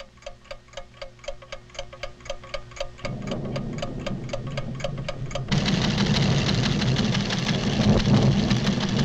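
Rapid, even clock-like ticking, about five ticks a second, over a low held tone. A low rumble joins at about three seconds, and at about five and a half seconds loud orchestral music takes over.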